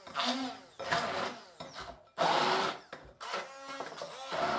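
Handheld stick (immersion) blender whizzing chunky olive tapenade in a glass bowl, run in repeated short bursts, its motor pitch dipping and rising as the blades bite into olives, sun-dried tomatoes and basil. The loudest burst comes about two seconds in.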